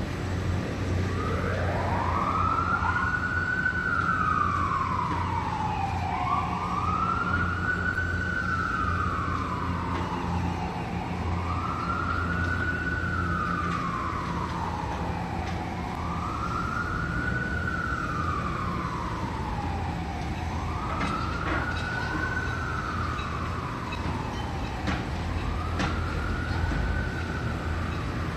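Siren wailing slowly, its pitch rising and falling about every four seconds, over a steady low rumble.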